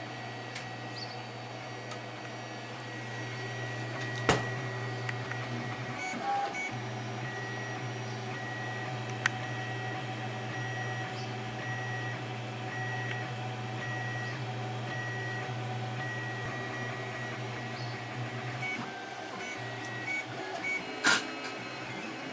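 Maximus 3D printer printing: its stepper motors whine in short, repeated on-off tones as the print head moves, over a steady low hum. A few sharp clicks stand out, the loudest near the end.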